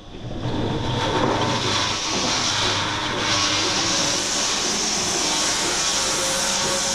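Lely Astronaut A3 Next milking robot at work under a cow: a steady mechanical hum with a hiss, the hiss growing stronger about three seconds in.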